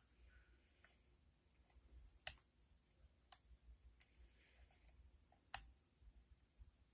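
Faint, scattered clicks of a hook pick and tension wrench working the pins of a K1 Locks 'Docking' pin-tumbler lock, about five in all, the loudest a little past two seconds in.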